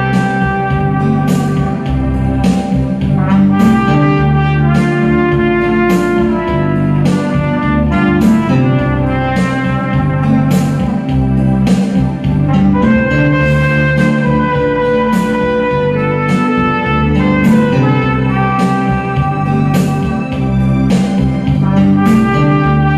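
Trumpet playing a melody of held notes over a backing track with guitar and a steady beat.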